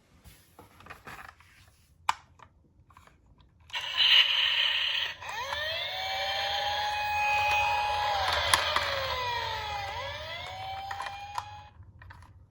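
Toy police car's electronic siren sounding for several seconds: a wailing tone that holds, slides down and rises again over a noisy hiss. It starts about four seconds in, after a few faint clicks and a knock, and stops shortly before the end.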